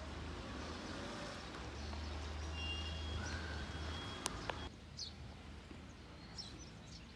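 Outdoor ambience with a steady low rumble and a few short high tones. Two sharp clicks come about four seconds in. Then it cuts abruptly to quieter ambience with brief, high bird chirps.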